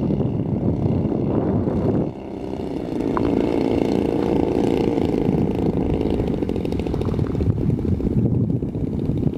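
The twin engines of a large radio-controlled P-61 Black Widow model aircraft run steadily at low power as it taxis over grass, with a brief drop in level about two seconds in.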